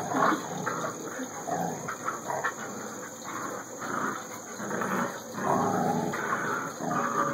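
Two dogs, a grown dog and a puppy, growling in play while tugging over a plastic frisbee. The growling runs on without a break and gets a little louder about two thirds of the way in.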